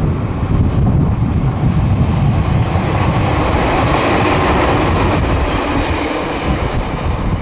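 Ichibata Electric Railway 3000 series two-car electric train (ex-Nankai 21000 series) passing close by, its wheels running over the rails. The sound is loudest about four seconds in as the cars go past, then eases off.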